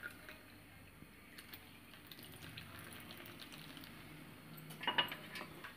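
Hot milk poured from a height into a mug of beaten coffee cream, a faint steady pouring. About five seconds in come a few sharp clinks.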